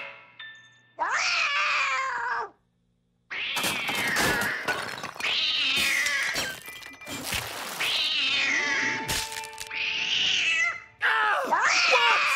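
Cartoon cat yowling in long, falling wails, one after another, with a short break about two and a half seconds in. A little after three seconds a crash of shattering china teacups joins the yowling.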